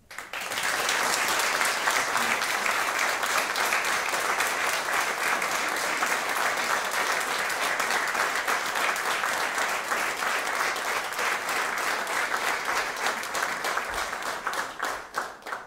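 Audience applauding: steady, dense clapping that starts right away and dies down near the end.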